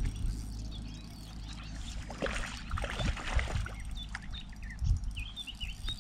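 Wind rumbling on the microphone, with small birds chirping and a brief spell of rustling noise about two to three and a half seconds in.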